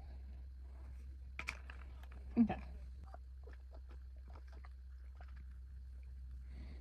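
Sipping through the straw lid of a Cirkul tumbler filled with ice water, with small scattered clicks and knocks from the cup being handled, and one louder knock about two and a half seconds in.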